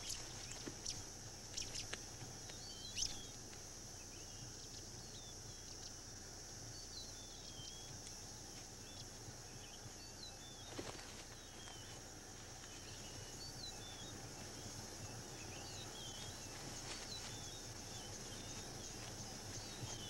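Faint field ambience: a steady high insect drone with many small bird chirps scattered throughout, and a few soft knocks or rustles in the first few seconds and once near the middle.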